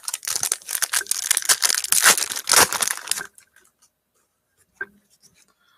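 Foil trading-card pack wrapper being torn open and crinkled for about three seconds, then a faint tick.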